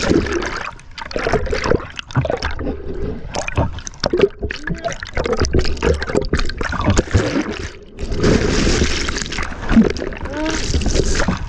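Sea water splashing and gurgling in the surf, with a louder rush of breaking whitewater about eight seconds in. Short bursts of voice sound now and then.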